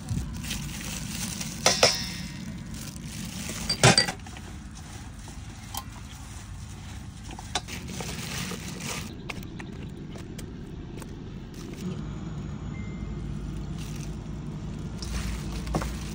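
Clinks and knocks on a stainless steel mixing bowl as seasonings are shaken in and chopped lemongrass, shallots and chillies are mixed by hand, with two sharp knocks in the first four seconds. A low steady hum runs underneath.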